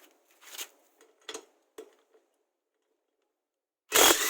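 ONEVAN brushless electric impact wrench starting up near the end in a sudden loud burst, hammering on a car's lug nut to break it loose. Before it come a few faint clicks.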